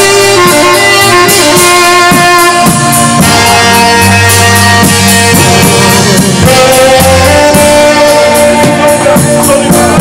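Saxophone playing a slow melody in long held notes over a live band. A drum kit keeps a steady beat on the cymbals, and a bass line runs underneath.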